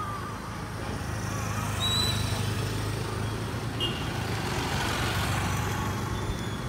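Street traffic: a motor vehicle's engine running with a steady low hum, its noise swelling and fading as it passes through the middle, with a couple of short high chirps.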